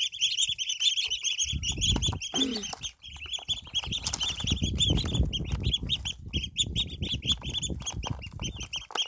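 A brood of ducklings peeping constantly, many rapid high peeps overlapping one another. From about a second and a half in, a low rustling runs underneath.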